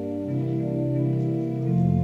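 Keyboard accompaniment holding sustained, organ-like chords, with the bass note stepping lower about a third of a second in and again near the end.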